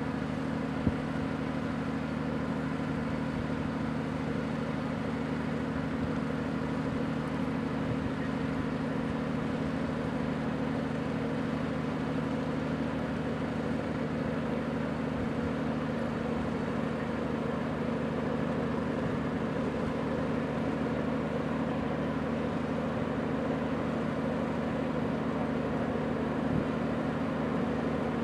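Steady low drone of a distant diesel engine running at constant speed, with a hiss behind it and a single click about a second in.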